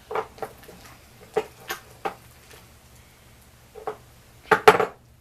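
Homemade glitter slime being squished and pulled by hand: a series of short sticky pops and squelches, about seven in all, the loudest and longest near the end.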